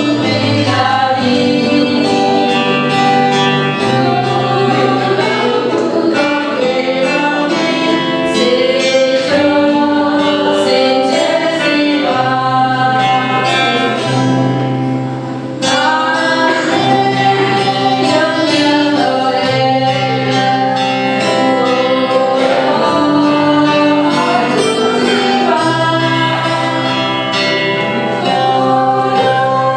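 Women singing a Burmese praise song into microphones over an instrumental accompaniment with held bass notes. The music dips briefly about halfway through, then carries on.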